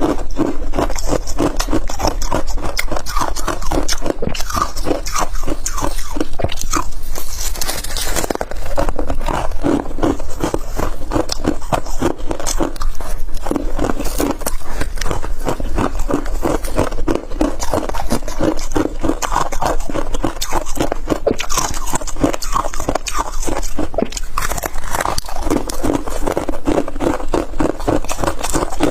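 Close-miked chewing of hard frozen ice, a dense, unbroken run of crunches.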